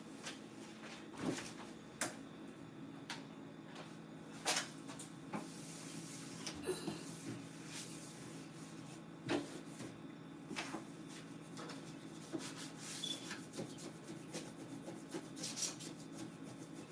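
Wiping and rubbing on surfaces, with scattered light knocks and clicks of things being handled, over a faint steady low hum.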